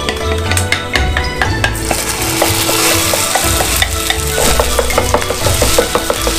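Egg-coated rice hitting a hot oiled frying pan and starting to sizzle about two seconds in, then a wooden spatula stir-frying it quickly, scraping and tapping the pan in rapid strokes. Background music plays underneath.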